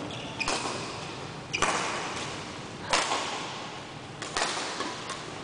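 Badminton rackets striking a shuttlecock in a rally, four sharp hits about a second and a half apart, the third the loudest, each echoing in a large sports hall.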